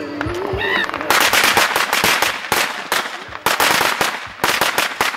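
A string of firecrackers going off on pavement: dense, rapid cracking that starts about a second in and comes in several bursts with short gaps between them.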